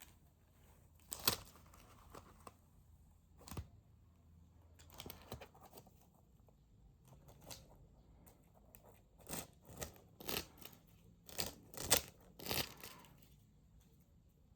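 Short, irregular bursts of rustling and crinkling, as of a paper hand fan being moved and batted about, busiest in the second half.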